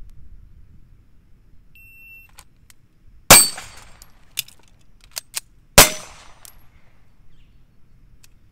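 A short steady beep, then two pistol shots about two and a half seconds apart, with a few light clicks of a magazine reload between them.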